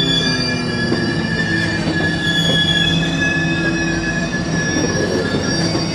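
Rocky Mountaineer passenger coaches rolling past, their steel wheels squealing: several high squeals sound at once over a low rumble, some shifting in pitch as they go.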